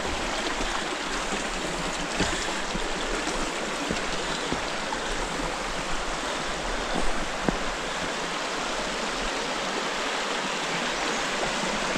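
Hudson River rapids rushing over rocks: a steady, even rush of water, with a few faint knocks.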